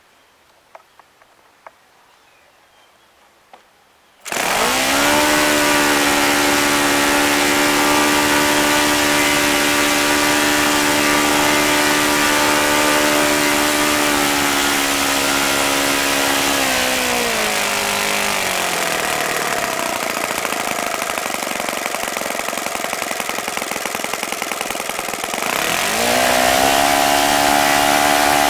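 OS FS-95V four-stroke glow model aircraft engine turning a 14x6 propeller on its first run after a rebuild. It fires up suddenly about four seconds in and runs steadily near 9,000 rpm, slows to a low idle for several seconds, then speeds back up near the end.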